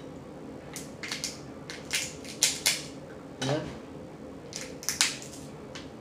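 Boiled crab shell cracking as it is pulled apart and peeled by hand: a run of short, sharp cracks, several in quick clusters.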